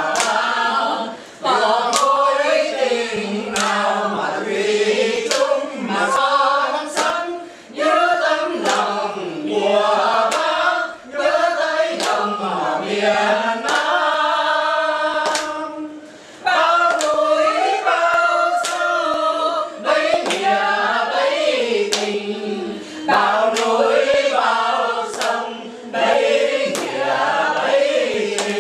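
A group of men and women singing together unaccompanied, with short pauses between phrases. They clap along in time, about once a second.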